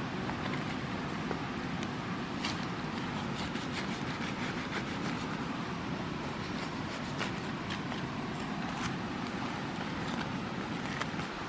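A steady low rumble of outdoor noise with scattered light clicks and crackles from hands pulling apart the sticky flesh and bulbs of a split ripe jackfruit.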